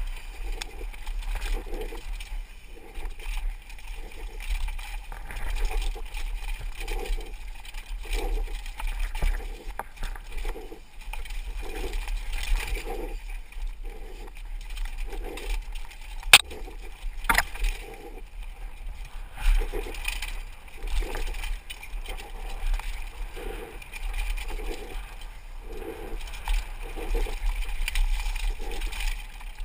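Mountain bike rattling and its tyres rolling over a dry, rocky dirt trail at downhill speed, with wind buffeting the helmet camera's microphone as a steady rumble. Two sharp knocks about a second apart come just past the middle, the loudest sounds in the stretch.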